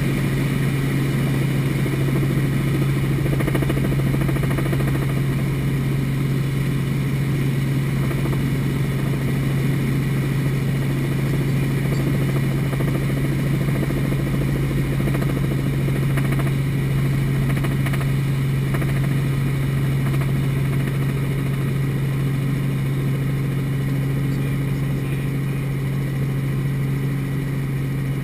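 Light helicopter's engine and rotor running steadily in flight, heard from inside the cabin as a loud, even drone with a strong low hum. A second, higher hum joins about three quarters of the way through as the helicopter descends toward a field.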